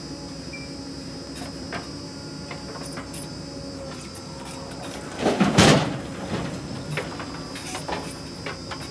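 JCB 3DX backhoe loader's diesel engine running steadily under hydraulic load as the rear bucket works. About five seconds in, a loud rush of soil and clods pours from the bucket into the tractor's steel trolley, with scattered knocks of clods and stones.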